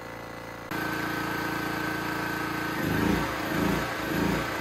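Honda GX270-clone single-cylinder engine of a portable generator running on propane, steady at first and stepping up in level about a second in. From a little past the middle it surges rhythmically, a little under twice a second: the engine hunting while the new propane carburettor is still being tuned.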